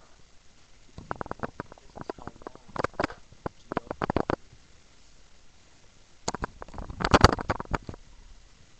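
Inflated rubber balloons rubbing and brushing against the camera and each other, making crackly rubbing noises in two bouts: one starting about a second in, and a louder one about six seconds in.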